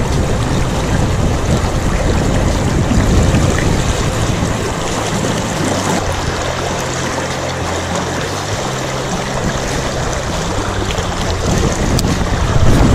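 Loud, steady rushing of wind and water, with wind buffeting the microphone. A low hum sits under it through the middle and fades near the end, and the rushing swells again near the end.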